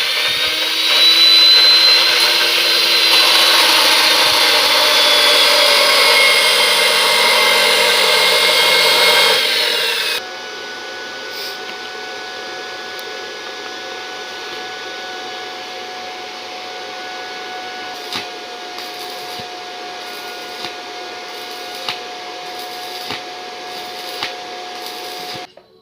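Mini BTEC inverter welding machine being test-run: a loud, steady rushing noise for about ten seconds, then it drops suddenly to a quieter steady hum with a thin whine and occasional clicks.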